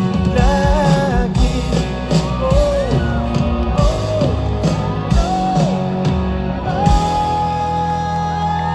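Live rock band playing, with a male lead vocalist singing the last word of a line over drums, bass and electric guitars. From about seven seconds in a single long note is held over the band.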